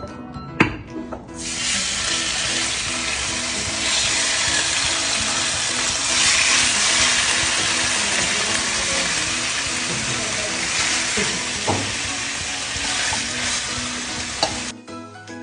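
Thin bacon-cut pork slices sizzling hard in hot oil in a frying pan, turned now and then with tongs. A sharp knock comes about half a second in, before the sizzle starts; the sizzle cuts off suddenly near the end.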